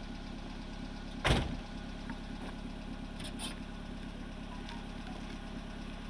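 Off-road rally 4x4's engine idling steadily, with a single door slam about a second in.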